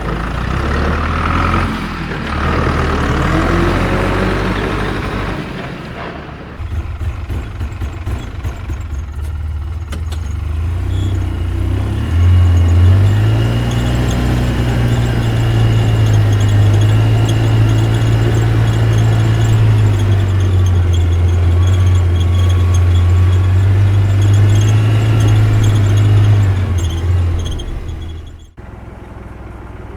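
Small motor of a DIY model vehicle running, whining and changing pitch at first. About twelve seconds in it settles into a loud steady low hum, which stops suddenly shortly before the end.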